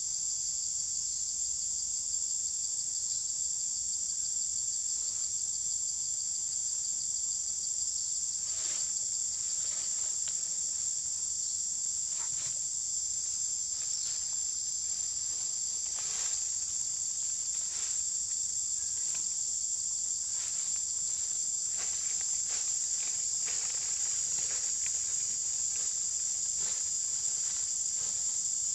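Steady high-pitched chorus of forest insects, joined from about eight seconds in by irregular crunching and rustling of footsteps through dry fallen leaves.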